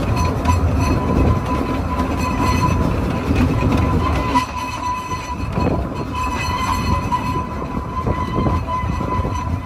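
Small 2 ft narrow-gauge steam train running on curving track, a steady rumble of the carriage and wheels with a thin high tone running through it. The level drops slightly about halfway through.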